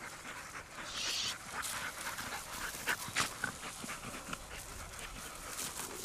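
Hunting dog panting, with rustling and footsteps in dry grass.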